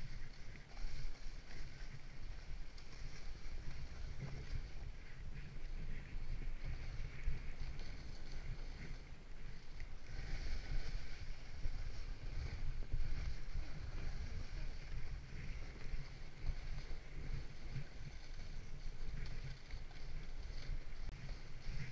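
Wind buffeting the microphone, low and rumbling, over the continuous hiss and scrape of a sit-down snow sled sliding down a snowy slope.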